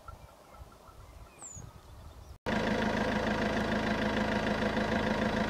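Faint outdoor ambience with one short high chirp, then an abrupt switch about two seconds in to a loud, steady, engine-like drone holding several level tones.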